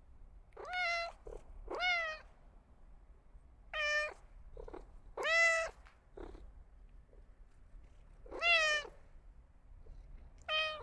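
Domestic cat meowing: about six short meows at irregular intervals of one to three seconds, with a few faint short sounds between them.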